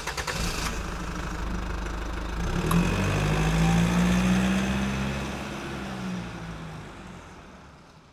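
A truck engine running, beginning with a clattery burst, its note swelling and rising about two and a half seconds in, then fading steadily away.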